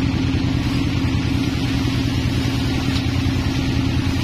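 Sawmill machinery running steadily: a constant low, engine-like hum with no change in pitch.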